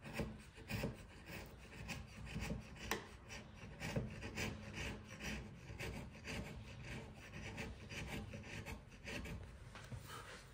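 Wood chisel paring thin shavings off a halving joint by hand, a run of short scraping strokes at an uneven pace. It is a fine adjustment, taking down a part that sits slightly high so the joint comes flush.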